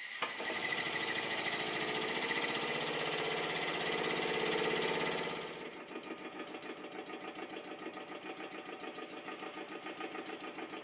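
Mamod TE1 steam tractor's small oscillating-cylinder steam engine running fast, with rapid, even exhaust beats and a high hiss. It is louder for the first five seconds or so, then quieter. The run is smooth after its cylinder and port face were lapped and its reversing lever straightened.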